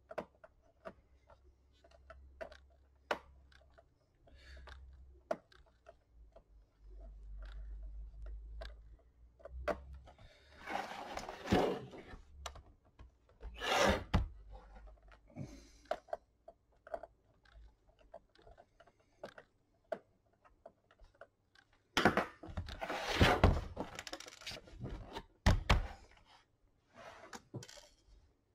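Plastic clicks and knocks as the bottom case of an HP 250 G7 laptop is pried along its edge with a plastic pry tool. There are louder bursts of handling thunks and scraping a few times, when the laptop is tipped up and set back down.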